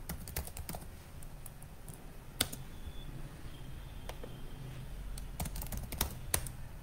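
Typing on a computer keyboard: irregular runs of key clicks with pauses between, and one louder single click about two and a half seconds in.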